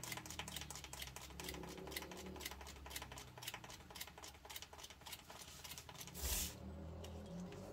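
Stainless steel cake turntable spinning, giving a fast run of light, even clicks that spread slightly apart as it slows. About six seconds in there is a short, louder rush of noise.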